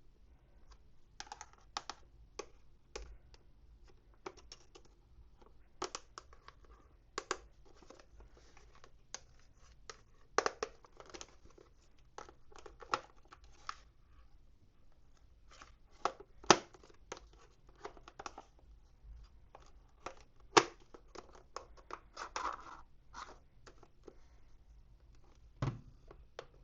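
Toy packaging being opened and handled by hand: irregular crinkling, tearing and sharp clicks, with a couple of louder snaps past the middle.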